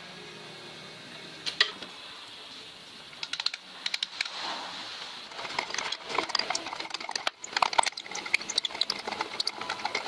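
A rusted threaded part of an old Chaise Vega stationary engine being twisted loose by hand, with metal grating on metal: one sharp click, then from about three seconds in a run of quick, irregular clicks and scrapes.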